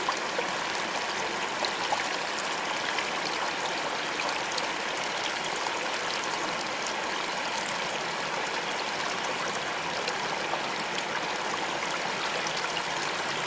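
Shallow rocky stream rushing steadily over rock ledges, a constant even wash of water.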